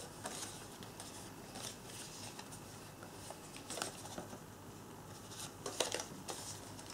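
Paper and card being handled and bent by hand: faint rustling, with a few short crackles of the sheets, the loudest near the end.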